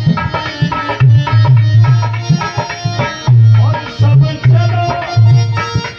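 Live Indian folk stage music: a hand drum played in a fast repeating rhythm, with deep booming bass strokes, over a held melody instrument.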